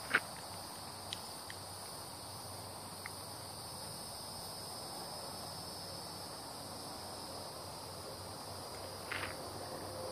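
Steady, high-pitched chorus of insects. A sharp click comes just after the start, a few fainter clicks follow in the first three seconds, and a short rustle comes about nine seconds in.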